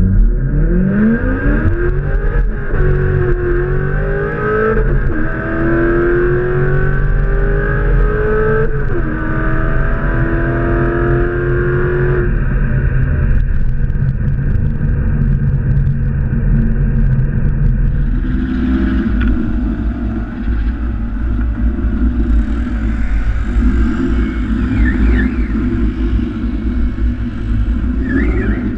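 Car engine at full throttle heard from inside the cabin, rising in pitch as it pulls through the gears, with three manual upshifts in the first nine seconds. About twelve seconds in the throttle comes off, and the engine then runs steadily at lower revs.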